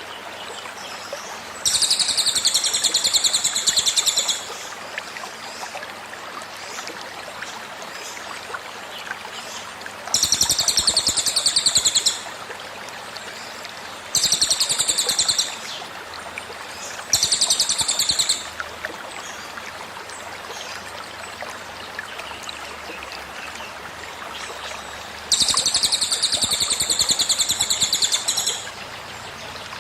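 A cililin's 'tembakan' song: five loud bursts of very rapid high notes, each one to three seconds long. Under it runs the steady trickle of a flowing stream.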